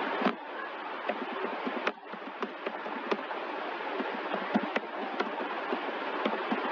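Computer keyboard keys clicking now and then as a sentence is typed, over a steady background hiss.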